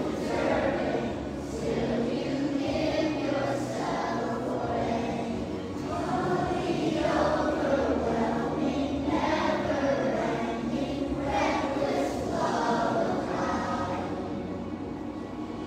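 A group of children singing a song together, many voices at once.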